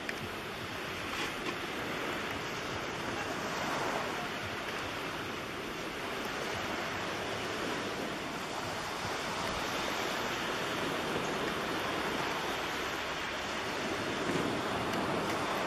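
Steady rushing noise of surf and wind, with wind buffeting the microphone.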